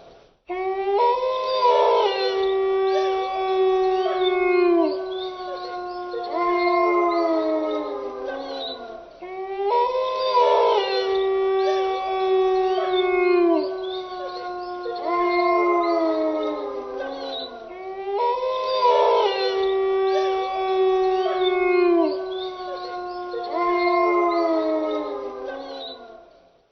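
A pack of wolves howling in chorus: several long howls at different pitches overlap, each held steady and then sliding down at its end. The same passage of about nine seconds plays three times over.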